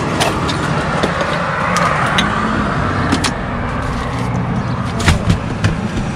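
Pickup truck engine idling steadily, heard from inside the cab, with scattered light clicks and rustles as papers are handled.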